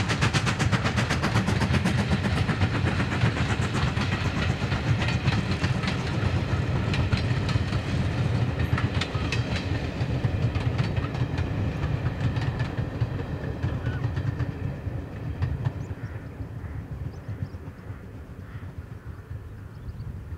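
GWR Manor class 4-6-0 steam locomotive passing at speed with rapid, even exhaust beats, followed by its coaches clattering over the rail joints. The sound fades away over the last few seconds as the train recedes.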